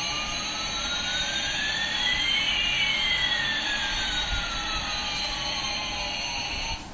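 Toy remote-control Airbus A380's electronic jet-engine sound effect: a steady hiss with two whining tones, one climbing in pitch while the other falls, crossing midway. It stops abruptly near the end.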